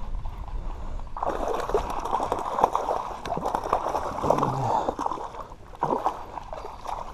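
A hooked bullhead catfish thrashing and splashing at the surface of the water close by, starting about a second in and going on in choppy spurts.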